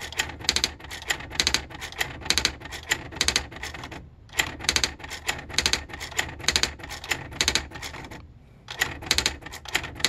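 AEG Olympia XL 501 electric typewriter running its memory correction: it backspaces and strikes each typed letter again through its correction tape to white it out. This makes a steady run of sharp mechanical clacks, about three a second, that pauses briefly about four seconds in and again a little after eight seconds.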